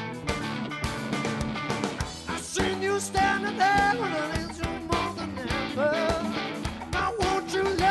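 Live rock band playing, with electric guitars, bass and drums; a male lead vocal comes in about two and a half seconds in.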